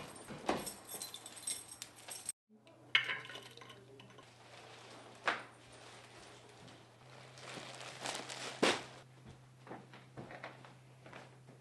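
Front door being opened, with keys jangling, then a few sharp knocks and clinks of things being handled and put down, over a low steady hum. The sound cuts out briefly about two seconds in.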